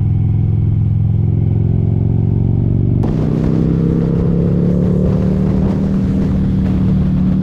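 Harley-Davidson motorcycle's V-twin engine running under way at a steady pace. About three seconds in, the sound changes abruptly: a brighter rush of air noise comes in and the engine note slowly rises as the bike pulls.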